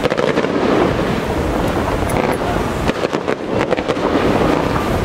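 Aerial fireworks bursting, a dense run of sharp cracks and pops in the first half-second and again about three seconds in, over a steady rush of wind and surf.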